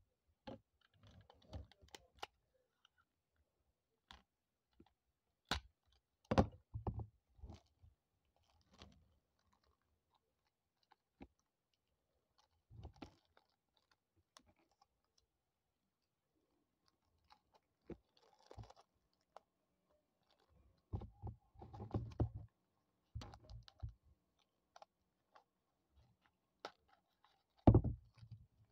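Paper and clear plastic wrapping handled and pulled apart by hand: irregular crinkles, rustles and small taps with pauses between them, and a louder knock near the end.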